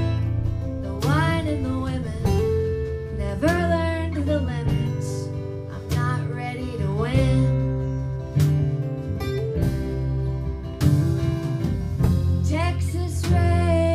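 Live acoustic guitar music: strummed acoustic guitars with a bending melody line over them.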